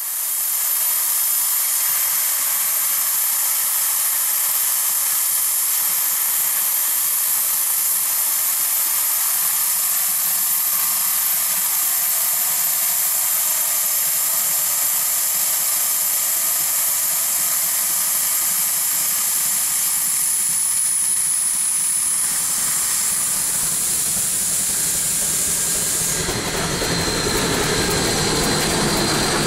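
Steady high steam hiss from Shay geared steam locomotives venting steam. In the last few seconds a lower rumble joins as the train gets moving past.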